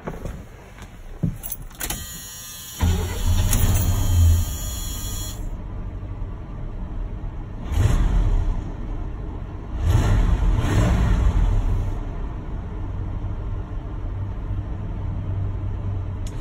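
The original 350 small-block V8 of a 1976 Chevrolet C10 starting warm, heard from inside the cab. The starter cranks briefly and the engine catches about three seconds in. It revs, is revved twice more around eight and ten seconds, then settles to a steady idle.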